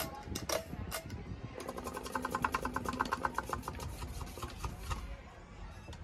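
Pull-chain switches and metal bead chains on a Hunter Stratford ceiling fan's light kit: a few single clicks in the first second, then a quick, even run of rattling, ringing clicks for about three seconds, over the low hum of the running fan.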